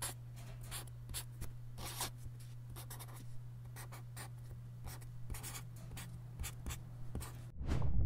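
Chalk scratching across a blackboard as letters are written by hand, in short strokes and bursts, over a steady low hum. About seven and a half seconds in it cuts off, and a louder low rushing noise takes over.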